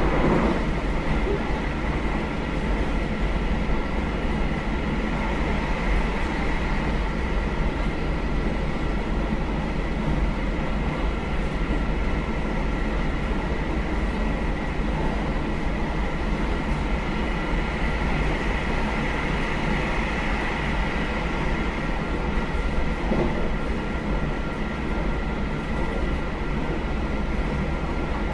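JR Hokkaido KiHa 201 series diesel railcar running steadily at speed, heard from inside the car: engine rumble and wheels on the rails, with a steady high whine over them.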